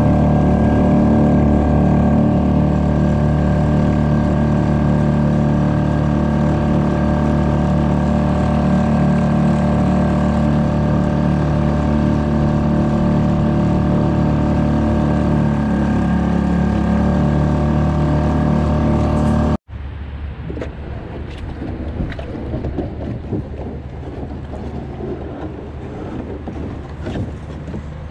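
Suzuki DF2.5 four-stroke outboard running steadily under way. About two-thirds of the way through it cuts off abruptly, leaving a quieter rumble of road traffic with a few light clicks.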